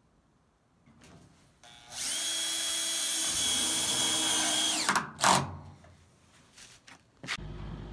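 Cordless drill spinning steadily for about three seconds as it drives a screw into a corrugated steel roofing panel, its whine falling as the trigger is let off. A single sharp knock follows. Near the end a steady low rumble starts.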